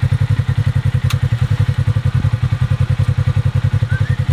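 A vehicle engine running steadily with a low, even pulsing about eight times a second. A single sharp click comes about a second in.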